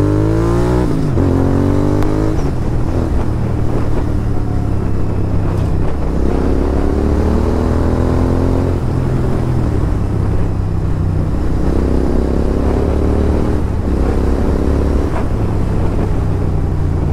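Motorcycle engine pulling up through the gears on the move: its pitch climbs three times and drops back at each shift, over a steady low rumble.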